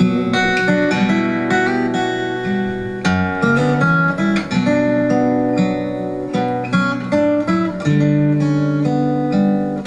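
Acoustic guitar playing an instrumental passage, picked and strummed chords with changing bass notes and no singing.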